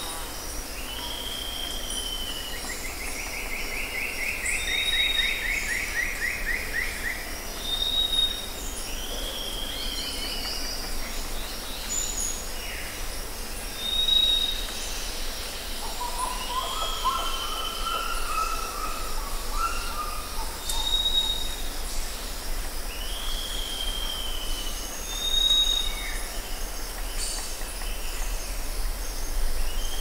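Rainforest birds calling over a steady high insect drone. A short high whistle comes back every few seconds, alternating with a downslurred call. There is a fast trill a few seconds in and a lower run of notes about halfway through.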